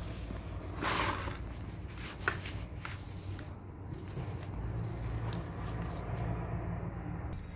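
Dried sand-and-cement lumps being crushed and crumbled by hand in a plastic tub of loose powder, a gritty crunching and rustling. There is a louder crumble about a second in and a sharp click a little after two seconds.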